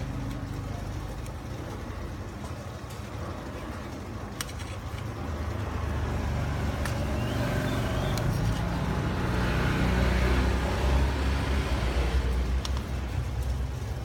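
Low rumble of a passing road vehicle, growing louder from about five seconds in, loudest around ten seconds, then easing off, with a few sharp clicks.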